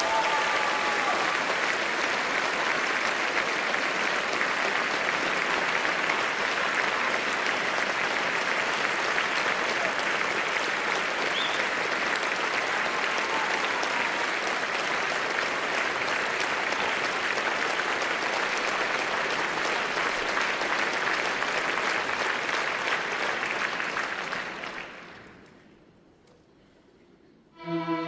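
Theatre audience applauding steadily, dying away after about 25 seconds. Orchestral music starts up again just before the end.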